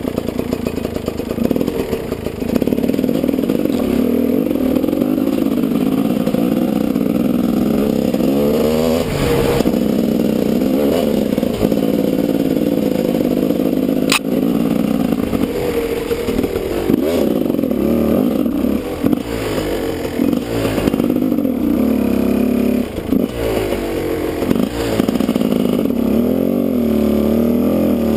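Husqvarna WR 250 two-stroke enduro bike engine running and revving up and down as it climbs a rocky dirt trail, heard from the rider's helmet. Scattered knocks throughout, with one sharp click about halfway through.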